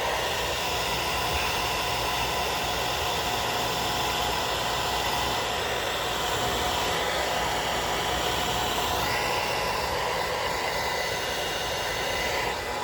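Hair dryer running steadily: an even rush of blown air with a faint steady motor whine.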